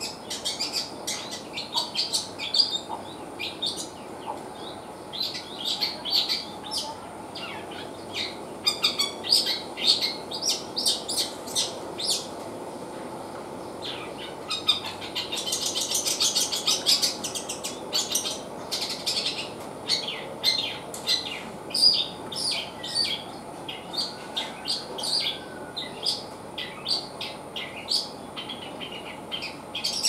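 Caged long-tailed shrike (cendet) singing: a steady run of short, sharp chirps and calls, with a denser stretch of rapid notes about halfway through. It is singing busily ('gacor'), which the keeper puts down to a dose of kencur (aromatic ginger) as a tonic.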